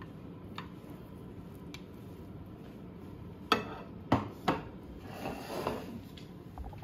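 A metal spatula knocking against a glass baking dish, three sharp clinks about halfway through, then scraping along the bottom of the dish while lifting out a portion of baked cheese and potato pie.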